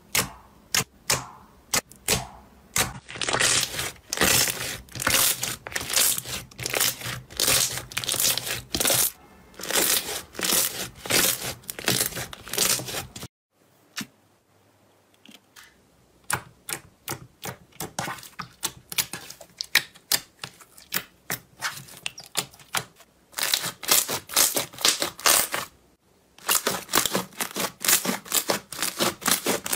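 Slime being squished, pressed and folded by hand, making rapid sticky clicks and pops. The clicking stops abruptly about halfway through, returns sparser and quieter, then grows dense and loud again near the end.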